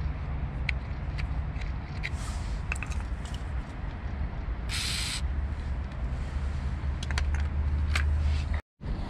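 A short hiss from an aerosol can of penetrating oil, about half a second long, about five seconds in. Small clicks and scrapes of parts being handled come before and after it, over a steady low rumble, and the sound cuts out for a moment near the end.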